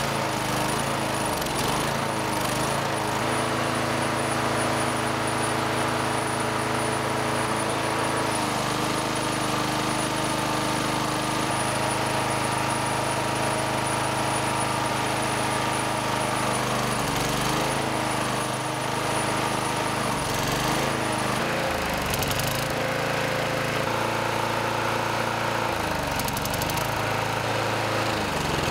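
Small single-cylinder lawn mower engine running steadily at speed, warmed up to operating temperature. Its pitch dips briefly a few times in the second half.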